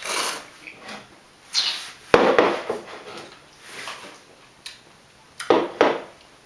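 Wine-tasting mouth sounds: sparkling red Lambrusco slurped with air drawn through it and swished in the mouth, then spat into a glass spittoon. A sharp click about two seconds in and a few knocks near the end come from glassware meeting the tabletop.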